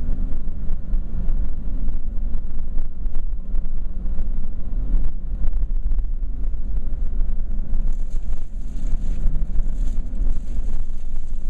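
Car driving slowly, heard from inside the cabin: a steady low rumble of engine and tyres, with wind buffeting the microphone.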